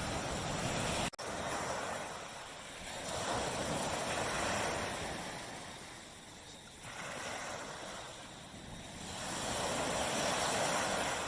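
Ocean waves breaking and washing onto a beach, the surf rising and falling in slow swells a few seconds apart, with a split-second dropout about a second in.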